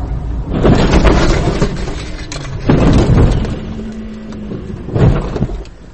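A car crashing off a snowy road and rolling over, heard from inside the car: three heavy crashing impacts about two seconds apart as the body hits the ground, with crunching and rattling between them.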